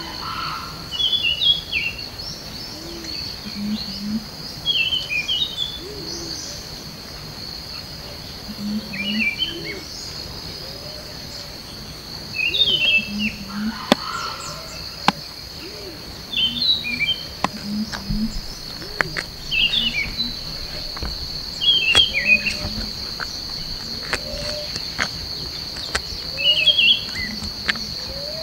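Tropical forest ambience: a steady high insect drone with repeated chirping bird calls every few seconds and occasional sharp clicks.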